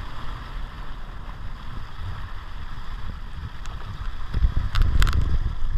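Wind buffeting the microphone and water sloshing against the hull of a slow-moving or drifting Sea-Doo personal watercraft, with no steady engine note. It grows louder and gustier near the end, with a couple of sharp slaps.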